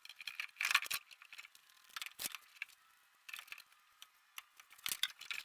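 A few irregular light clicks and taps with short gaps of quiet between them, the loudest near the start, about two seconds in and near the end.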